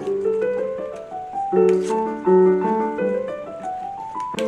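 Soft solo piano music playing a slow melody over chords. A brief rustle of paper slips being folded comes about two seconds in, and a click follows near the end.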